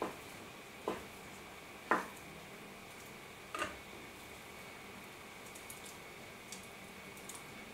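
Four sharp knocks against a shallow stainless steel dish, each with a short metallic ring, within the first four seconds, the third the loudest; then a few faint light clicks.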